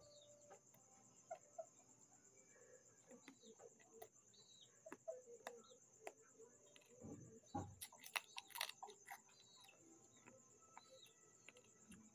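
Faint steady insect trill with short chirps repeating every second or so, over scattered crunches and clicks of crispy fried pork belly being eaten by hand, loudest about eight seconds in.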